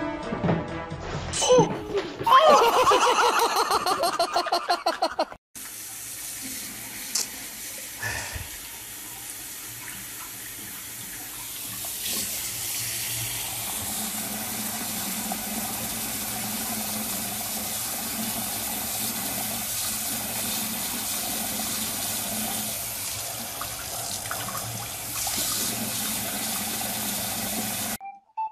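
Tap water running steadily from a bathroom faucet into a sink, with the stream falling over a cat's paws. Before it, for about the first five seconds, a loud wavering pitched sound cuts off suddenly.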